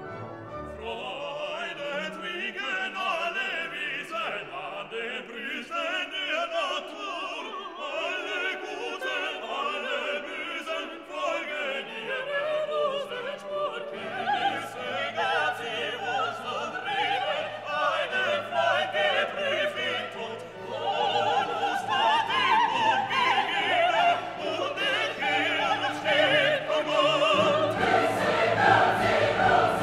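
Classical background music: an orchestra with operatic singing, growing fuller about two-thirds of the way through.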